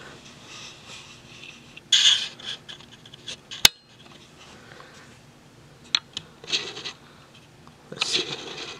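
Handling noise from a hand moving things about on a countertop and picking up a smartphone: rubbing and scraping, with one sharp click a little over three and a half seconds in and a few lighter clicks about six seconds in.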